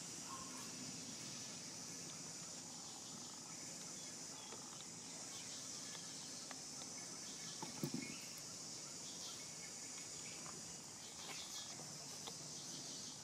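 Steady high-pitched insect chorus, with scattered faint clicks and a short soft thump about eight seconds in.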